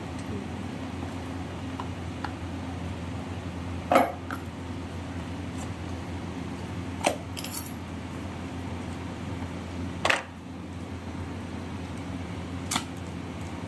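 A smartphone's retail box and packaging being handled and opened: four separate sharp clicks and knocks, the loudest about four seconds in, with others about three, six and nine seconds later, over a steady low hum.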